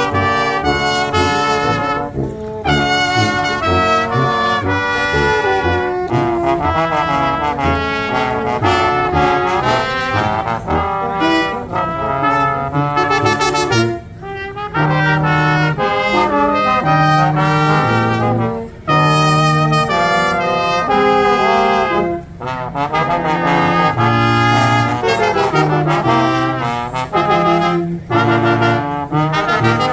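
Brass music: trumpets and trombones playing a lively tune over a moving bass line, with brief breaks between phrases.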